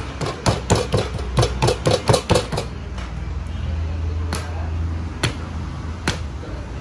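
Oiled martabak dough being worked by hand on a marble slab: a quick run of wet slaps as it is patted and pressed flat, then single sharp slaps about once a second as the sheet is stretched and flung. A steady low hum runs underneath.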